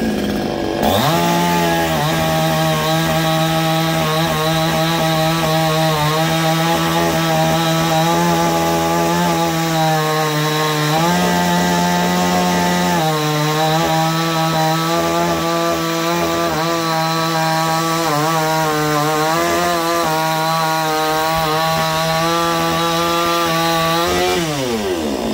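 Pinkway 63cc two-stroke chainsaw revved up to full throttle about a second in and held there while cutting through a log, its pitch rising briefly near the middle and wavering as the load changes, then dropping off sharply near the end as the throttle is released.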